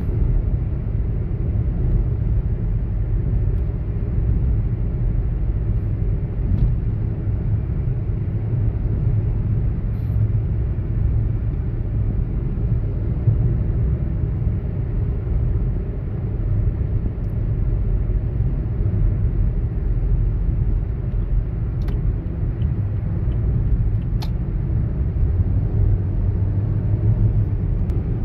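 Steady low rumble of a car driving at highway speed, heard from inside the cabin: engine and tyre-on-road noise.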